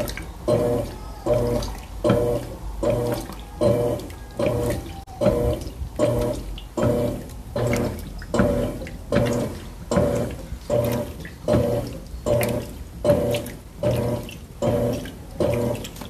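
Electrolux Turbo Agitação Super 8 kg top-loading washing machine agitating a load. The motor hums with each stroke as the agitator swings back and forth about one and a half times a second, with water sloshing in the tub.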